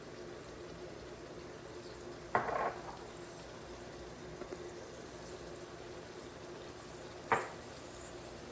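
Kitchen cooking sounds: a steady low simmer with a faint hum under it, broken by two short knocks of cookware, a brief clatter about two seconds in and a sharper knock that rings briefly near the end.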